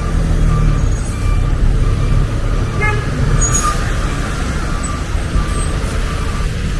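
Street traffic dominated by the low, steady engine rumble of a heavy vehicle such as a truck or bus, with a few short hisses of air.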